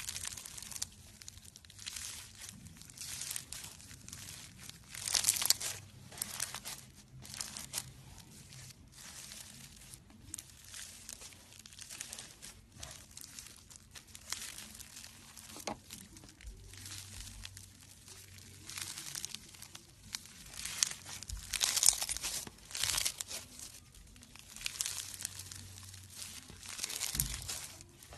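Slime being squeezed, stretched and worked by hand, giving irregular crackling and squishing noises in waves, loudest about five seconds in and again just past twenty seconds.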